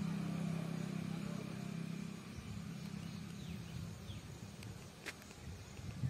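A distant motor engine drones steadily, then fades away about two seconds in. After that come a few faint bird chirps and low rumbles of wind on the microphone.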